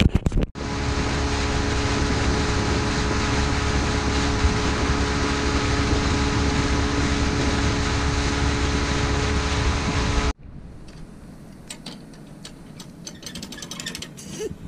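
Fishing boat's outboard motor running at speed across the lake, a steady engine drone under heavy wind and water rush. It stops abruptly about ten seconds in, leaving quieter light clicks and rattles.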